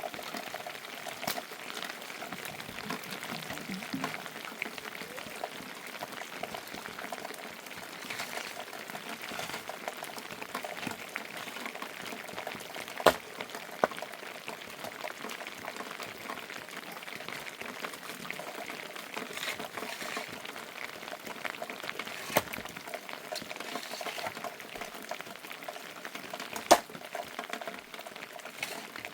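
Steady heavy rain, a dense even patter, with a few sharp knocks, the loudest about halfway through and again near the end.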